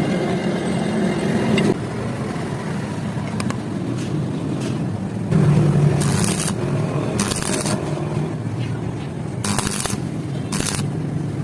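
Stick (arc) welding: a steady low hum, broken by short bursts of hissing crackle several times, about every second or two in the second half.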